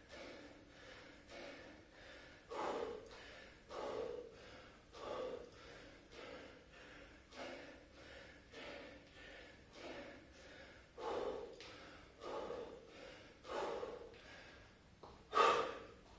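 A man breathing hard through a set of bodyweight squats: a sharp exhale about every second, in an even rhythm, the loudest one near the end.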